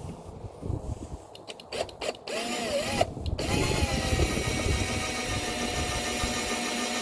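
Electric drill running in reverse, turning a left-handed drill bit into a bolt broken off in an engine's cylinder head. After a few clicks, the motor's whine rises and falls in speed, then holds steady from about three and a half seconds in.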